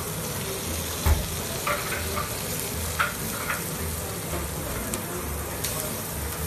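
Steaks sizzling on a hot grill, a steady hiss, with a few sharp clicks of metal tongs as the meat is turned, the loudest about a second in and again at three seconds.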